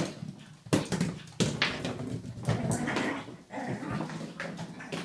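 Pug puppy making excited vocal noises during rough play with a toy, mixed with irregular sharp clicks and scuffles on a hardwood floor, loudest about a second in.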